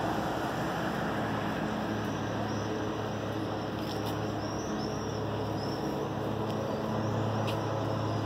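Steady street traffic noise with an even low engine hum.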